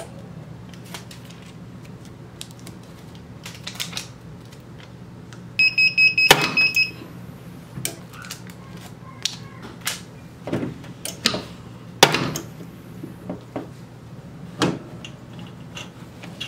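Hands handling a hat heat press and a transfer sheet, with scattered clicks, taps and a few sharp knocks. A quick run of about five electronic beeps from the press's digital controller comes about six seconds in. A steady low hum runs underneath.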